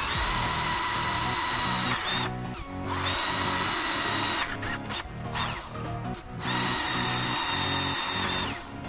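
Electric drill with a twist bit boring holes through PVC pipe, the motor whining steadily at speed, stopping briefly about two seconds in and again a few times midway before starting up again. Background music plays underneath.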